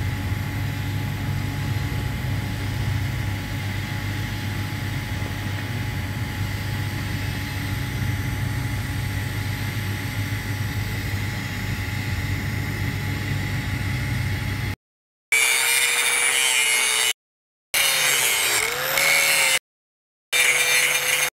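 Angle grinder grinding on a steel pipe joint, running steadily for about fifteen seconds as a tack weld is ground down. It then gives way to a few short spliced stretches of a different hiss with a faint wavering tone, broken by sudden dead silences.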